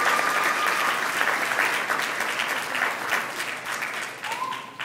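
Audience applauding, thinning out and fading toward the end. A long, steady whistle rings over the clapping at the start and stops about a second in, and a short rising whistle comes near the end.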